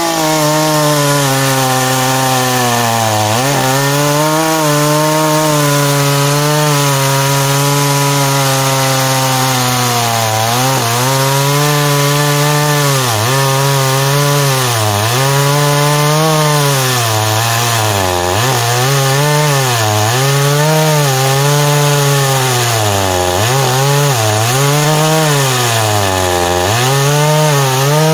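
Oleo-Mac GSH 510 two-stroke chainsaw at full throttle, cutting down through a large log. The engine pitch sags under the load and recovers, holding fairly steady at first, then dipping every second or two from about a third of the way in as the bar bites deeper.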